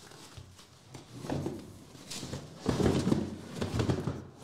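Cardboard shipping case being handled: flaps pulled back and the boxes packed inside bumped and shifted, giving a run of irregular rubs and knocks that is busiest in the second half.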